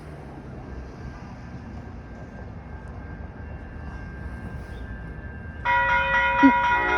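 An approaching passenger train's low rumble builds slowly, then about five and a half seconds in its horn sounds loud: a chord of several steady tones, held.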